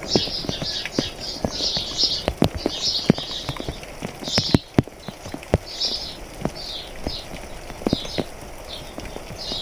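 Rain drops tapping irregularly on a hard surface, with birds chirping in short, repeated high-pitched bursts over a faint hiss of rain.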